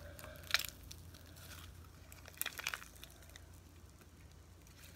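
Homemade slime with lotion mixed in being kneaded and stretched by hand: a few faint crackles, one about half a second in and a short cluster around two and a half seconds, over a low steady hum.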